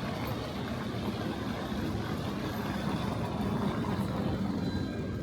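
Steady low rumble of a vehicle engine running, with no distinct events.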